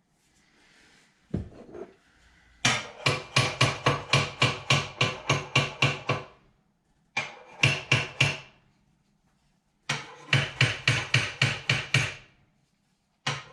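Hammer striking sheet metal in quick runs of ringing blows, about four a second, in three bursts with short pauses between them.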